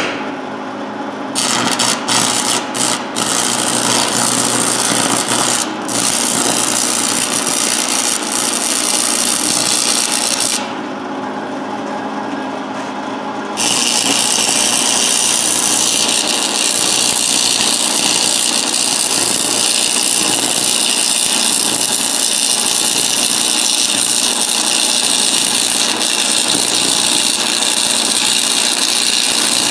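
Stick (arc) welding a bead onto the steel of a railroad-track anvil: a steady, noisy hiss that stutters with a few short breaks in the first few seconds, goes duller and quieter for a few seconds near the middle, then runs on steadily and brighter.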